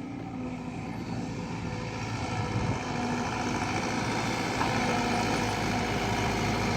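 Diesel engine of a Caterpillar hydraulic excavator running steadily, growing gradually louder.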